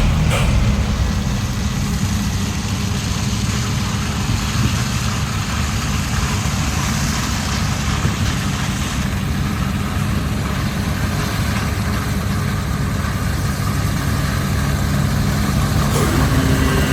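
Claas Lexion 8800 combine harvester running steadily: a low, even engine rumble with a constant wash of machine noise.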